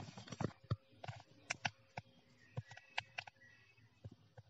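Faint, irregular clicks and taps, about eight spread over a few seconds.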